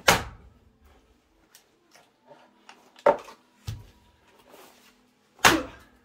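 Splitting axe chopping larch firewood rounds: three sharp blows, the first about three seconds before the second and the third about two and a half seconds after it, with a lighter knock just after the second blow.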